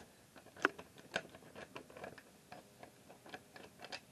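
Irregular light clicks and taps, several a second, the sharpest about two-thirds of a second and just over a second in: a hand handling the wooden chicken coop's panels.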